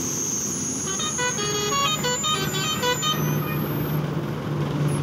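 A vehicle's musical horn plays a quick tune of short notes stepping up and down for about two seconds, over a steady engine hum that grows stronger once the tune stops.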